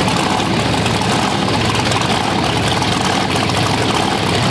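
Supercharged V8 of a custom C3 Corvette with a big blower through the hood, running loud and steady at idle as the car creeps along.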